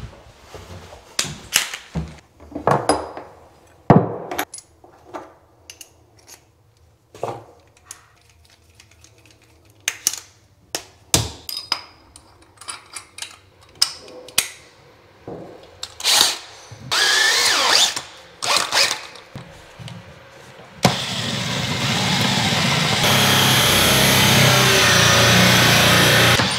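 Scattered knocks and clicks of handling, then near the end a DeWalt cordless drill runs steadily for about five seconds, driving a holesaw into a chipboard floor to cut an access hole.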